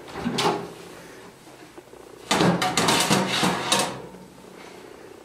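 Oven door opened, then a metal baking tray clattering and scraping as it is pulled out of the oven: a burst of quick knocks about two seconds in, lasting over a second.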